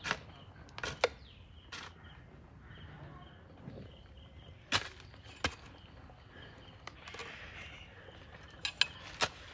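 About ten short, sharp knocks and clicks at irregular intervals, some in quick pairs, over a quiet outdoor background with a faint high tone that comes and goes.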